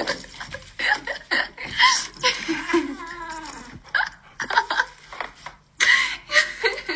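A person laughing in short, breathy bursts, with brief gaps between them.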